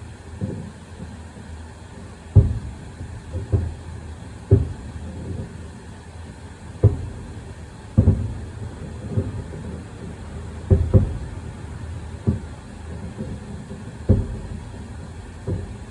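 Fireworks bursting overhead: about a dozen deep booms at uneven intervals, some in quick pairs, each fading quickly, over a steady low rumble.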